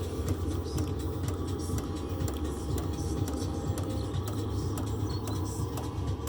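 Diesel parking heater housed in a Mac Pro case, running: a steady low rumble from its burner and combustion fan, with frequent light ticks.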